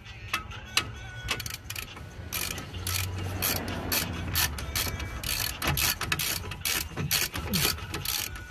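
Hand ratchet clicking in quick runs of ticks as it unscrews a front brake caliper bolt.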